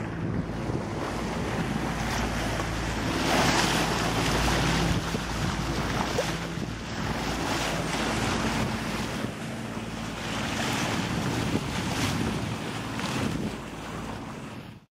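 Sea water rushing and splashing along a sailboat's bow as it moves through the water, swelling and easing every few seconds. Wind buffets the microphone, and a steady low hum runs underneath.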